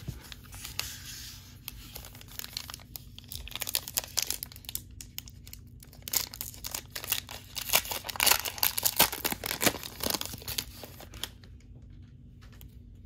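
Foil wrapper of a Mosaic basketball card pack crinkling in the hands and being torn open, the crackle thickest in the second half. It stops about eleven seconds in as the cards come out.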